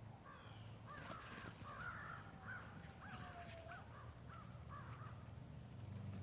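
A quick series of short, harsh animal calls, about eight of them in a row starting about a second in, over a faint steady low hum.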